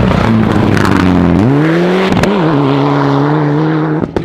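Mitsubishi Lancer Evolution rally car's turbocharged four-cylinder engine under load on a dirt stage. The revs climb about a second and a half in, a single sharp crack comes about two seconds in, and a steady high engine note follows until the sound stops abruptly near the end.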